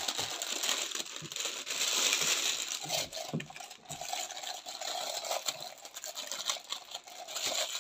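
Plastic piping bags rustling and crinkling as they are handled and fitted into glasses, with small taps and clicks throughout.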